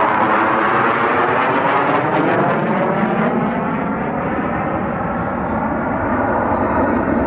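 Aircraft flying low past, its engine noise loud and steady with a sweeping, phasing quality.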